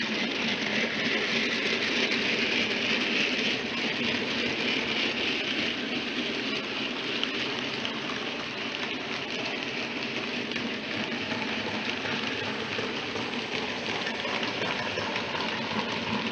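4 mm-scale model freight trains running past: a steady, dense clatter of small metal wheels rolling over the track and rail joints, loudest in the first few seconds.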